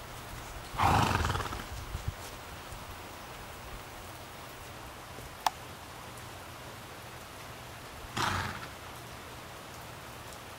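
Fjord horse snorting twice, blowing air out through its nostrils in short breathy blasts about seven seconds apart. The first is louder and longer.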